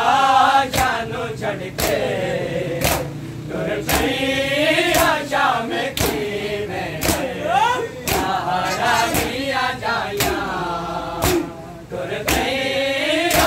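Group of men chanting a Shia mourning noha together, with a sharp slap about once a second from chest-beating (matam) in time with the chant.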